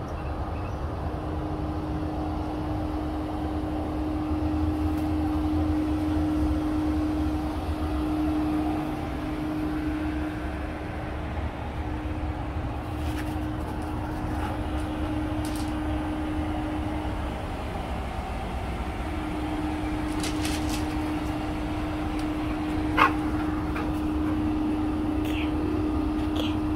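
Pool equipment running: a steady mechanical hum with a constant low tone and rumble, the tone briefly dropping out around two-thirds of the way through. A single sharp click sounds near the end.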